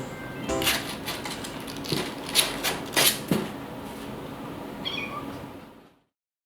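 Kitten with a high-pitched mew about five seconds in, after a run of sharp taps and knocks, and the sound cuts off shortly after.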